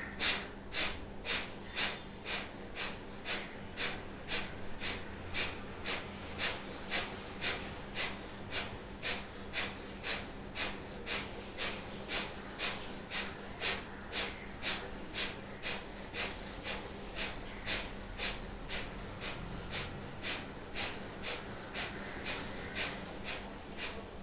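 Single-nostril Kapalbhati breathing: sharp, forceful exhalations through one nostril, about two a second, each a short hissing snort, with the inhalations passive and almost unheard. The bursts grow somewhat softer in the last few seconds.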